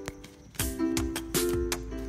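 Background music: a plucked-string tune with sharp, evenly spaced notes, joined by a deep bass about half a second in.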